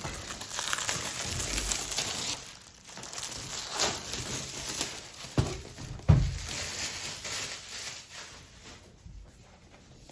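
Cardboard and plastic packaging of a graphics card box rustling and crinkling as it is opened and handled, with two dull thumps about five and six seconds in, the second the loudest.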